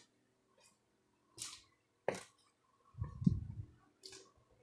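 A few faint, separate clicks and taps, with a soft cluster of low knocks about three seconds in.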